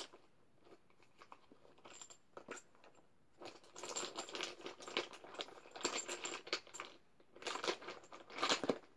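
Small hard objects being rummaged through by hand, clicking and rattling against each other. A few scattered clicks at first, then two longer bursts of dense rattling from about halfway through and near the end.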